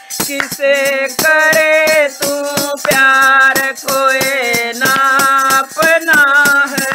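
Instrumental break in a Hindi devotional bhajan: a melodic lead instrument plays a phrase of held and sliding notes over a steady beat of drum strokes and high crisp percussion.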